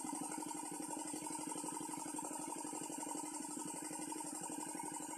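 Small engine-driven water pump, the kind used to drain a village pond, running steadily with a rapid, even beat.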